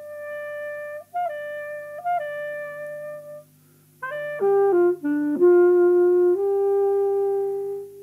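Credits music: a single wind instrument playing a slow melody of long held notes. It pauses briefly near the middle, then moves through a few quicker notes into a long held note.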